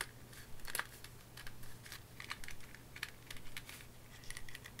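Light, irregular clicking and rustling of hands handling a plastic action figure and fitting its cloth cloak.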